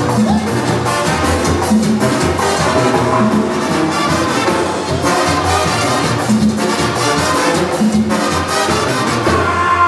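A live brass band playing: trumpets and trombones with drums keeping a steady beat.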